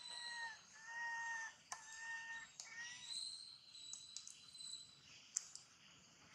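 An animal calling: four clear, slightly arched calls of even pitch, each just over half a second long, in the first three seconds. Then a thin, high steady tone holds for a couple of seconds, with a few faint clicks.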